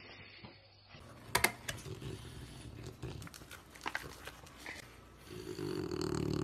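French bulldog with a slice of pizza in its mouth: a few sharp clicks, then, from about five seconds in, a steady low growl that grows louder.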